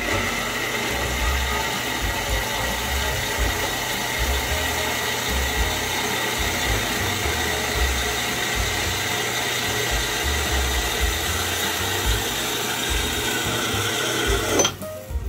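Horizontal metal-cutting bandsaw running, its blade cutting through round metal bar stock: a steady sawing noise with a thin high whine. It stops abruptly near the end.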